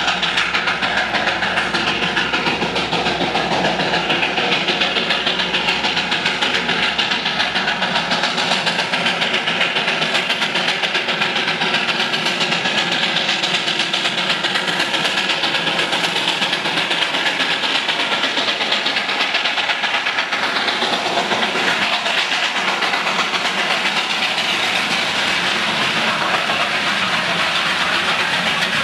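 Darjeeling Himalayan Railway 0-4-0 saddle-tank steam locomotive working, giving a steady, loud hissing rush of steam.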